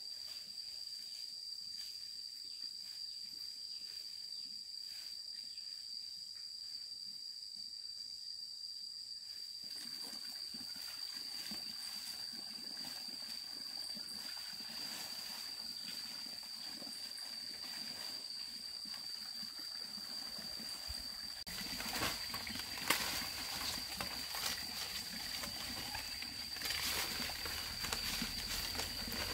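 Outdoor ambience with a steady high-pitched drone. From about two-thirds of the way in, louder rustling and a few sharp knocks join it.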